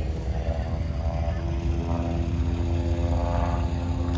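Aircraft engine droning steadily over a low rumble, with a few held tones that shift slightly in pitch.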